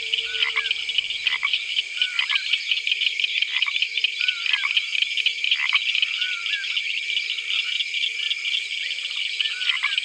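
Nature ambience: a steady high chorus of insects trilling, with short frog-like chirping calls about once a second and a faint held low note beneath.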